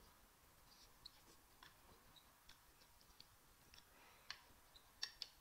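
Faint eating sounds: scattered small wet mouth clicks from chewing rice and beans, with a few sharper clicks about four and five seconds in.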